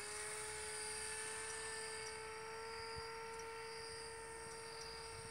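Whine of a radio-controlled model paramotor's electric motor and propeller, a steady tone that rises slightly in pitch in the first two seconds as it is throttled up to climb.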